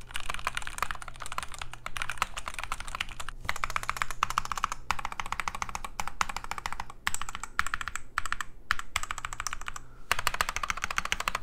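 Fast typing on a Womier WK61 60% mechanical keyboard with its stock switches, aluminium plate and PBT keycaps, the case weighted with quarters and the PCB taped: rapid flurries of key clacks with a few short pauses. A metallic ping still rings through the strokes.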